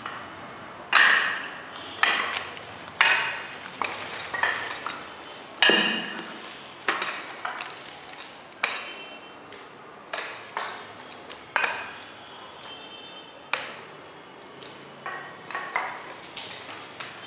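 Irregular sharp metallic clicks and clinks, roughly one a second, some ringing briefly, from a small paint roller and spiked overshoes working across a freshly poured epoxy floor.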